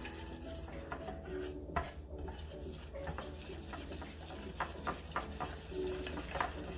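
A utensil stirring sifted flour into egg yolk batter in a mixing bowl: continuous scraping with frequent small clinks against the bowl.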